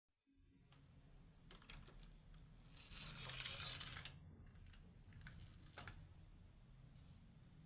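Faint clicking and rattling of marbles rolling down a wooden marble run, loudest about three to four seconds in, over a steady faint high whine.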